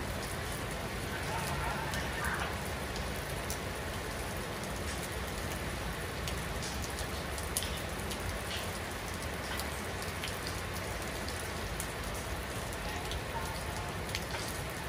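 Steady rain falling on wet stone terraces and the trees around, an even hiss with many single drops spattering close by.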